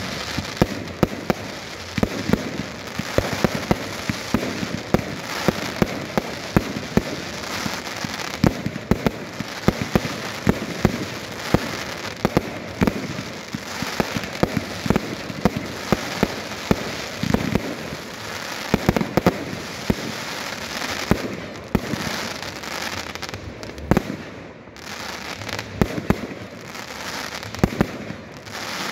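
Fireworks display fired close by: shells launching and bursting in quick succession, several sharp bangs a second over continuous crackling. The barrage eases briefly about three quarters of the way through, then picks up again.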